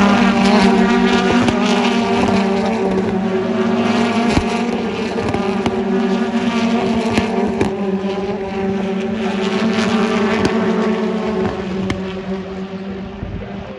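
BTCC touring cars racing past at high revs, a steady engine note with sharp pops and clicks mixed in. The sound fades near the end.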